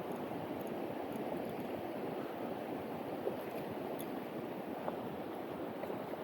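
Steady rush of a mountain stream's flowing water, with a couple of faint ticks partway through.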